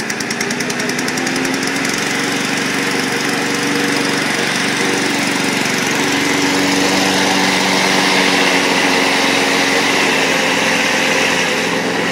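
Petrol walk-behind rotary lawn mower engine running just after a cold start, growing a little louder over the first few seconds and then running steadily.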